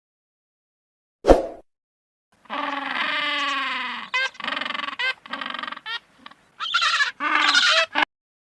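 A single thump, then an animal calling: one long wavering call followed by a string of shorter ones.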